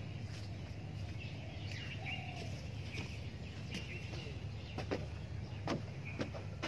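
Small birds chirping in short calls over a steady low hum, with a few sharp knocks in the second half, like footsteps on a wooden-plank boardwalk.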